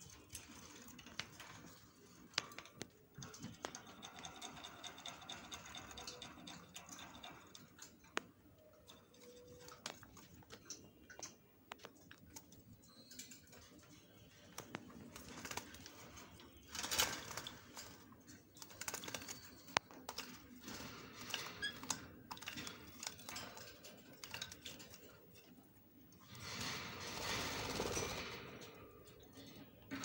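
Masked lovebirds bathing in a small water bowl: scattered light splashing and ticking clicks. Louder bursts of wing-flapping splashes come a little past halfway and again for about two seconds near the end.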